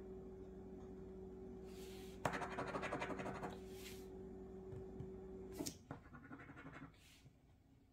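A coin scraping the scratch-off coating from a paper lottery ticket: short scrapes, then a fast run of strokes a little over two seconds in that is the loudest part, then lighter scrapes and a click. A steady low hum underneath cuts off about six seconds in.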